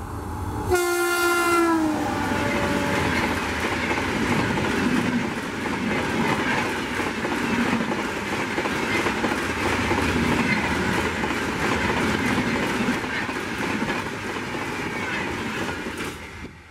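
Electric locomotive horn blown briefly about a second in, its pitch falling at the end, then the Mumbai Rajdhani Express rushing past at speed with a steady clickety-clack of wheels over rail joints, dropping away as the last coach clears, just before the end.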